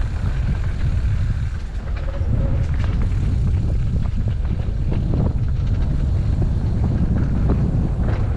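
Wind rumbling on the microphone while riding an electric mountain bike, with scattered clicks and knocks from the bike and tyres over rough ground.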